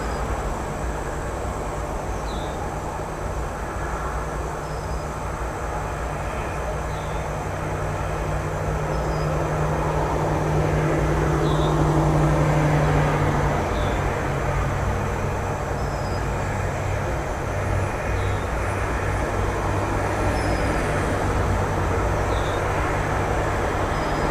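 Steady low engine rumble and hum that swells about halfway through and then settles at a lower pitch, with a short high chirp repeating every second or two.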